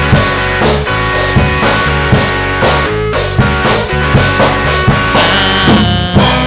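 Rock band playing an instrumental passage: drum kit with regular hits under sustained guitar notes, and a drum fill near the end.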